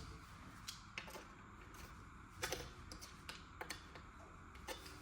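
Irregular light clicks and taps of small metal parts being bent and handled with pliers, about eight in all.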